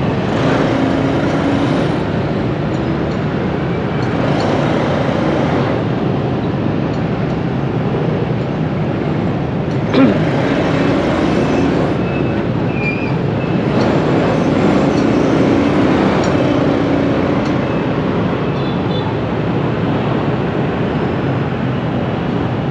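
Busy city street traffic: many motorbike and vehicle engines running steadily with road noise, heard while moving through it. A brief sharp sound stands out about ten seconds in.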